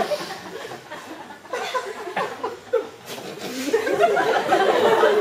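People laughing and chuckling, fading after the start, then swelling again from about three and a half seconds in.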